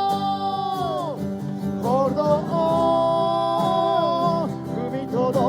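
A singer with acoustic guitar accompaniment. A long held note slides down and ends about a second in, then a new sung phrase with a wavering, held pitch begins.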